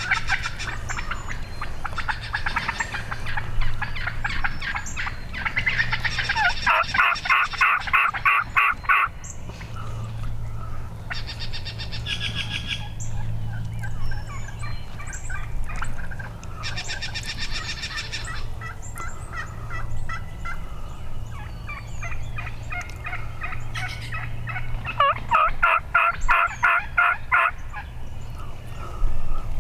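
Rio Grande wild turkeys gobbling and calling, with two long runs of rapid notes, one about seven seconds in and another about twenty-five seconds in.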